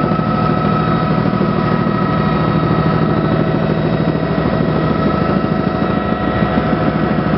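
Helicopter engine and rotors running steadily in flight, heard from inside the cabin: a loud, even drone with a constant high whine over it.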